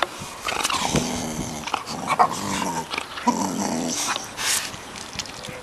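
Dogs growling in rough play: several low growls, each about half a second long, with knocks and scrapes in between.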